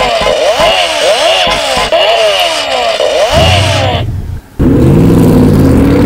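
Added sound-effect track for a toy-robot animation. A synthesized pattern of sweeping tones repeats about twice a second and stops about three seconds in. After a short break, a loud vehicle engine sound effect runs steadily.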